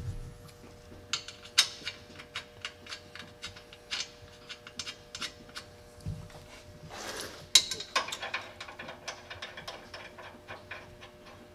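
Hand ratchet clicking in quick, even runs as suspension nuts and bolts are run down, with a brief hiss about seven seconds in.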